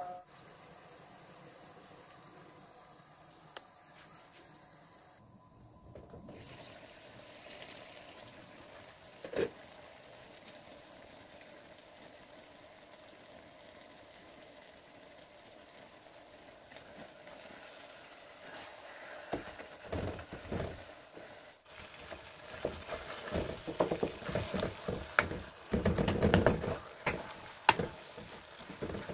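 Food cooking in a wok: a faint steady sound for about the first two-thirds, then a spatula stirring and knocking in the pan, with sizzling.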